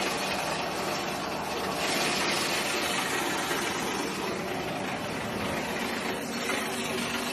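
Passion fruit processing machinery running steadily: an electric motor hum under a continuous rushing noise.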